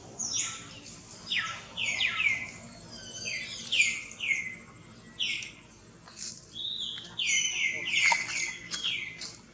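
Baby monkey crying: a run of short, high-pitched calls, each falling in pitch, often two or three in quick succession.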